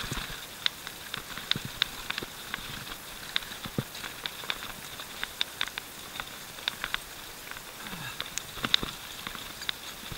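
Canyon Nerve mountain bike rattling down a rough descent: irregular sharp clicks and knocks as it jolts over stones and roots, over faint steady rolling noise.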